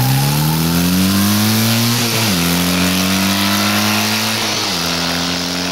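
Motorcycle engine accelerating away through the gears: the pitch climbs steadily, drops suddenly a little over two seconds in as it shifts up, holds steady, then drops again at a second upshift near the end.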